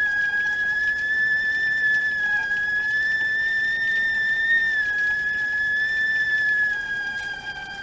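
Stovetop tea kettle whistling at the boil: one steady, high-pitched whistle that wavers slightly in pitch and gets a little quieter near the end.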